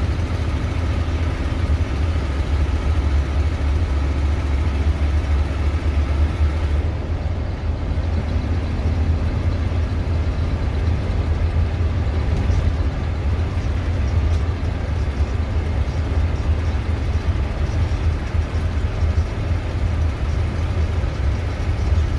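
Steady low drone of a 1986 Fleetwood Southwind motorhome's engine and road noise, heard from inside the cab while it drives along. The engine note shifts about seven seconds in.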